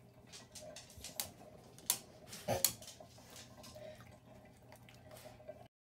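Light-up bath bomb fizzing in a tub of water: irregular small pops and crackles, with a couple of louder pops or splashes about two to two and a half seconds in. The sound cuts off suddenly near the end.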